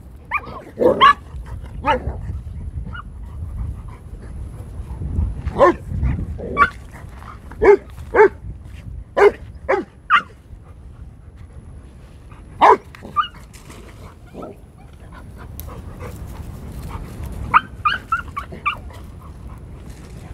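Cane Corso puppies giving short yelps and barks, about a dozen scattered calls with gaps between them, bunched in the first half and again near the end.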